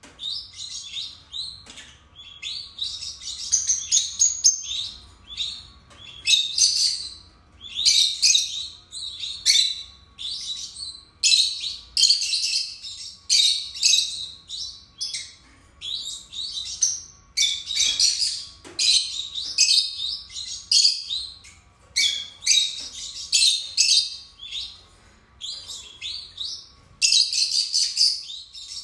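Two peach-faced lovebirds chirping and chattering: rapid, high-pitched chirps in dense bursts about a second apart, with no real break.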